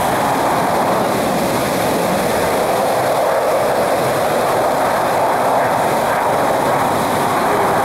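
Steady engine noise of an aircraft flying overhead.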